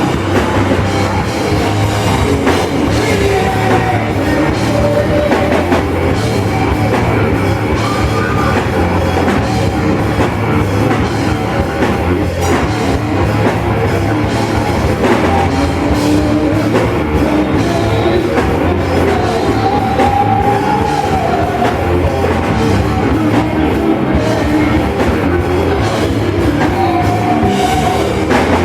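Loud heavy rock music from a band, driven by a drum kit, with held melodic notes rising above the dense mix now and then.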